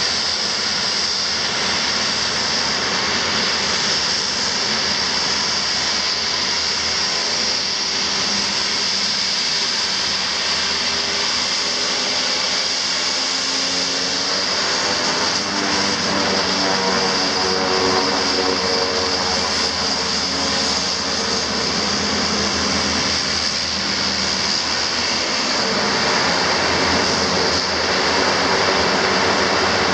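Twin turboprop engines of a Dornier 228 running while it taxis and turns, a steady high whine over a propeller drone whose pitch pattern shifts as the aircraft swings round. The sound grows a little louder near the end as it lines up on the runway.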